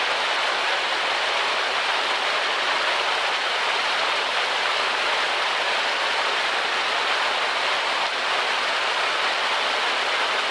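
Fountain water pouring from a stone spillway into the basin close by, a steady, even splashing rush.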